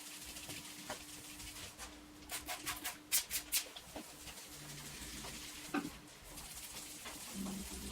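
Hand spray bottle squirting water, about six quick spritzes in a row, over a faint steady hum.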